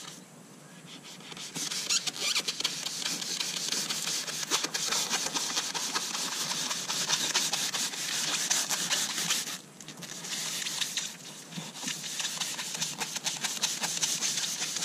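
A blunt kitchen knife sawing through soft, partly cured expanding foam: a steady scratchy rasping of many quick strokes that starts about a second and a half in and breaks off briefly about two-thirds through.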